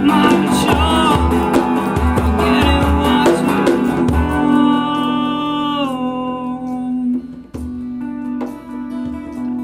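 Live rock song on guitars with bass and a steady low beat, playing without vocals. About four seconds in the beat stops and held notes slide down in pitch, leaving a sparser, quieter passage.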